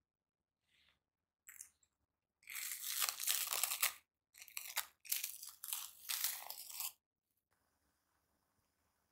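Plastic cling film being peeled off the rim of a glass mixing bowl, crinkling in two long bursts of about one and a half and two and a half seconds, after a few short rustles.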